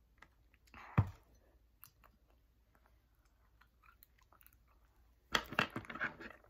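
A drinking glass set down on a table with a single knock about a second in, then crunchy chewing of a snack near the end.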